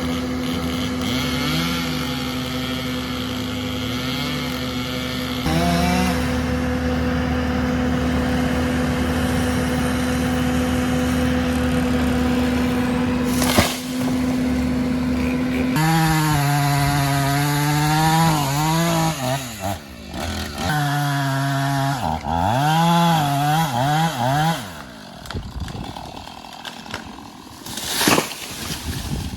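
Chainsaw running at steady full throttle while cutting into a dead tree, then revving up and down with short drops and pauses as the cut goes on.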